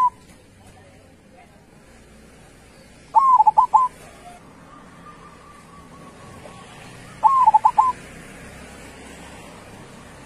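Zebra dove (perkutut) singing: two short phrases of quick, clipped coos, about four seconds apart, with the tail of another phrase right at the start.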